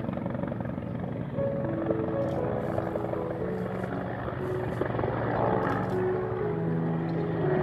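Firefighting helicopter with a water bucket slung beneath it, its rotor beating steadily as it passes over. A slow melody of single notes plays over it.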